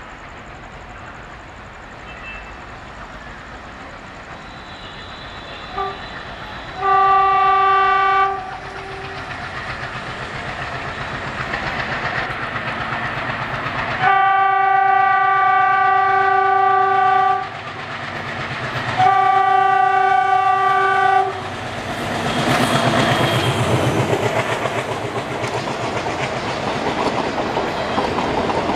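ALCO WDG-3A diesel locomotive approaching at speed and sounding its horn: a short toot, then three long blasts, the middle one the longest. Soon after the last blast the locomotive passes loudly, and the coaches follow with wheels clattering over the rail joints.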